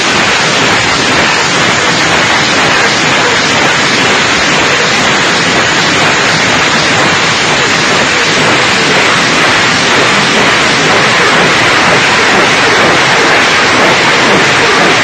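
BM-21 Grad multiple rocket launcher firing a salvo: a steady, loud rushing noise with no separate bangs standing out.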